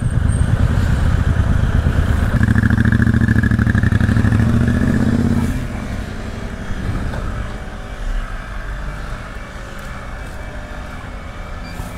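Motorcycle engines running at low speed, creeping forward in a toll-booth queue. They are loud for the first five and a half seconds, then drop to a quieter, steady idle.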